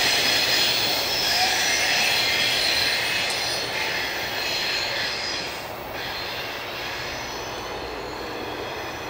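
Rear cars of an empty freight train rolling away, their wheels squealing. The sound fades about six seconds in as the train moves off.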